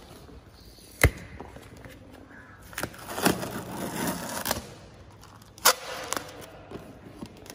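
Clear packing tape being peeled off a cardboard box: a rasping tear lasting about two seconds near the middle. Sharp knocks from the box being handled come about a second in and again near the end.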